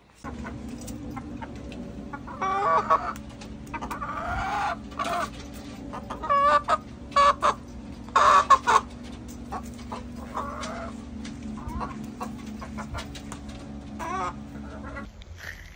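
Domestic hens clucking and calling in repeated bursts, loudest about eight seconds in. A steady low hum runs underneath and stops shortly before the end.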